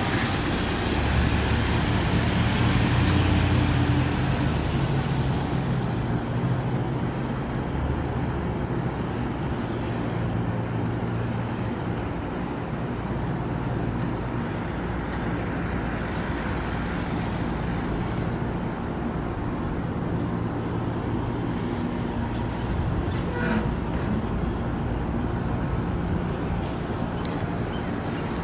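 Ford 6.2-litre gas V8 of a 2012 F250 Super Duty pickup running, louder for the first few seconds and then settling to a steady idle. A brief click about 23 seconds in.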